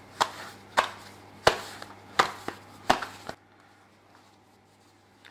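A ball of 67% hydration pizza dough being slapped and stretched by hand: five sharp, wet slaps about one every 0.7 seconds, each with a lighter tap after it, stopping a little past halfway.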